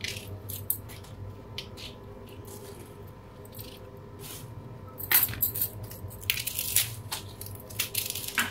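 Onion being peeled by hand: irregular crisp crackles and scrapes of the papery skin. The crackles are sparse at first and become busier and louder from about halfway.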